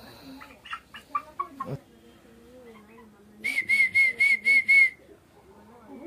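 Aseel hen clucking in a quick run of short notes, then six loud, evenly spaced high-pitched chirps, about four a second, past the middle.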